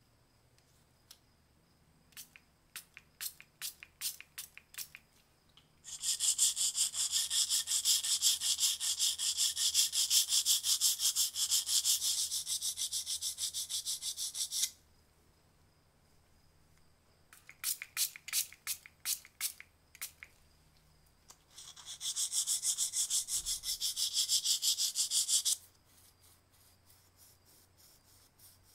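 Fine-grit sandpaper rubbed by hand over a small brass lighter part with quick back-and-forth strokes. A few scattered strokes come first, then a long spell of fast scrubbing of about eight seconds, a short run of strokes, and a second spell of scrubbing of about three and a half seconds, trailing off into light strokes.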